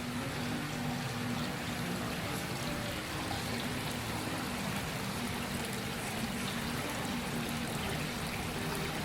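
Water running and trickling steadily, as in the circulating water of a large live-fish tank, with a low steady hum beneath.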